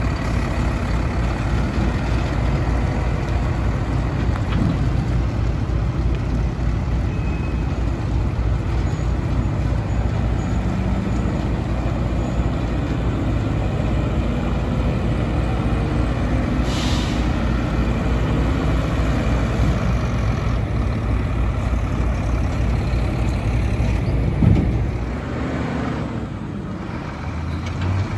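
Mack LR front-load garbage truck engine running with a steady, heavy low rumble as the truck pulls away, with a short hiss of air about two-thirds of the way through. Near the end there is a sharp loud knock, then a quieter truck engine.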